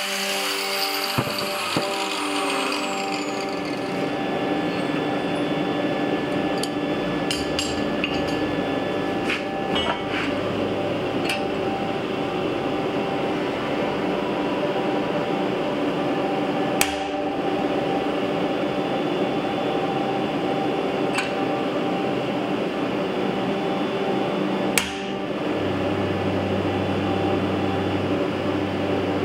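An angle grinder winds down with a falling whine over the first few seconds. Then come scattered single hammer blows, several seconds apart, on a steel jig holding a red-hot twisted bar on an anvil, over a steady hum and hiss.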